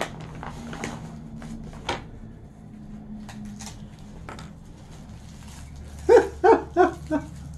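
A dog barking about five times in quick succession near the end. Before that, a few faint clicks and rustles of small plastic-bagged items being handled on a table.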